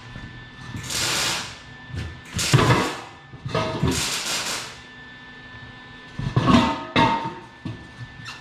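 Short, loud blasts of compressed air hissing at irregular intervals, typical of inflating and seating the beads of new dirt late model racing tires.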